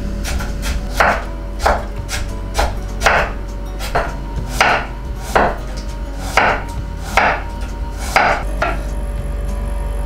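Kitchen knife cutting carrots into sticks on a bamboo cutting board: a series of crisp knife strokes against the board, about one a second, stopping shortly before the end.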